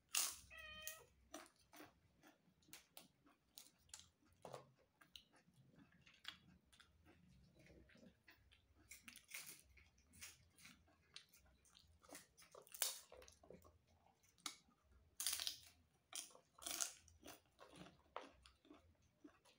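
A cat meows once at the start, then close-up chewing of a rice meal: a string of small mouth clicks with a few louder, sharper crunches.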